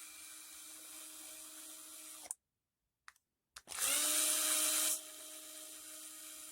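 Small handheld power drill backing out the motor mount screws. Its motor runs steadily, stops about two seconds in, then spins up again after a short pause, louder for a moment before settling into a steady whine.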